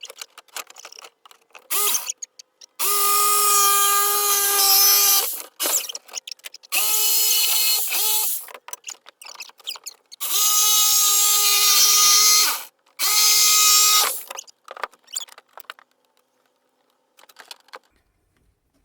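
Power drill running in four main bursts of one to three seconds each, with a steady whine and short blips in between.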